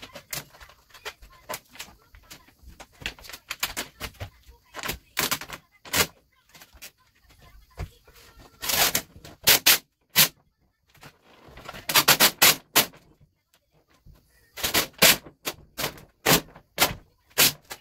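A large sheet of gloss black vinyl wrap film crackling and popping as it is peeled up, lifted and shaken out over a car hood. The crackles come in irregular bursts, the loudest clusters about nine, twelve and fifteen seconds in.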